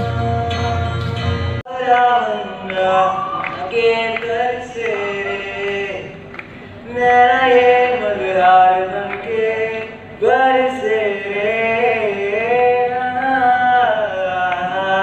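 A man singing a melody through a microphone and the hall's loudspeakers. About a second and a half in, a held chord and sung note with a steady low hum stops abruptly, and the singing starts straight after.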